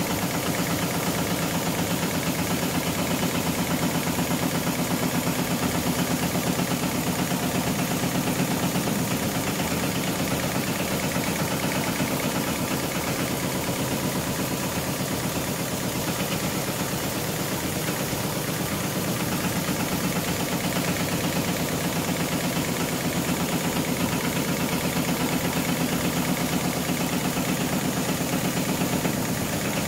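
HighTex GLK700-5030 heavy-duty programmable pattern sewing machine stitching wide webbing sling with thick thread: a steady, rapid run of needle strokes with the hum of its drive as the clamp frame moves through the pattern.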